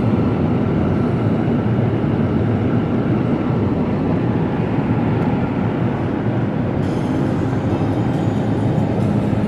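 Steady low road and tyre rumble with engine noise inside a moving car's cabin, with added hiss from about seven seconds in.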